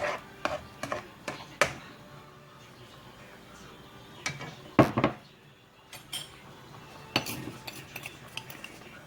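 Kitchen utensils and dishes clinking and knocking in irregular, separate strikes during cooking prep. The loudest knock comes about five seconds in.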